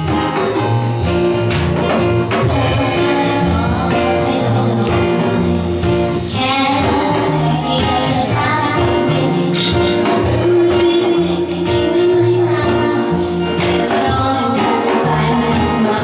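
Live acoustic band music: a woman singing over strummed acoustic strings, an upright double bass and a steady light percussion beat.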